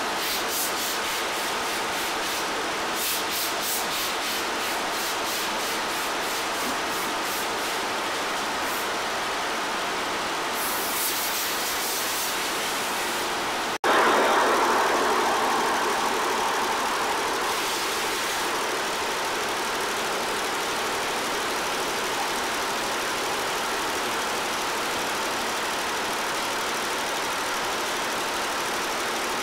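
Multi-needle computerised embroidery machine running steadily as it stitches, a continuous mechanical hum with faint repeated ticking. About 14 seconds in the sound breaks off for an instant and comes back louder, then settles.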